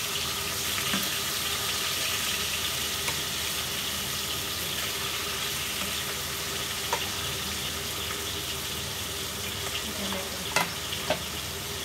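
Pieces of hilsa fish shallow-frying in hot oil, giving a steady sizzle, with a couple of sharp clicks near the end. The fish is only being lightly fried before the mustard gravy goes in.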